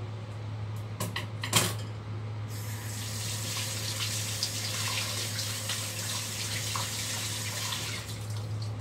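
Water running from a kitchen tap into a sink while hands are washed under it, starting about two and a half seconds in and stopping near the end. Before it come a few clicks and one sharp knock, and a steady low hum runs underneath.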